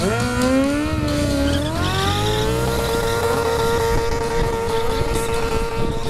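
Stunt motorcycle engine revving up sharply, climbing again in steps, then held at a steady high pitch, as the rear tyre spins and smokes in a burnout.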